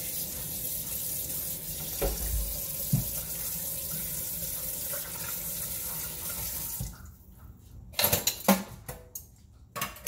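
Kitchen faucet running steadily into the sink, shut off about seven seconds in, followed by a few sharp knocks and clatters.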